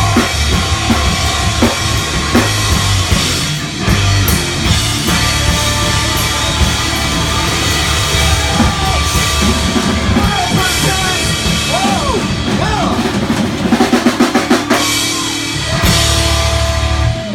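Live rock band playing loud, with a drum kit (bass drum and snare) driving under bass and bending electric guitar lines. A quick run of hits comes a couple of seconds before the end.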